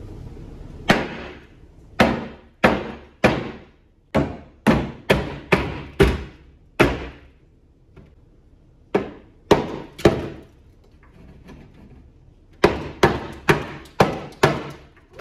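Claw hammer striking a built-in wooden shelf and counter unit, knocking it apart for demolition. The sharp, ringing blows come in three runs of roughly two a second: about ten, a pause, three, a pause, then five more near the end.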